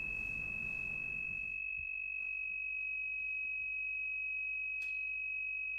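A steady, high-pitched pure tone held unbroken at one pitch, with no decay. The faint background hiss under it drops away about a second and a half in, and there is one faint click near the end.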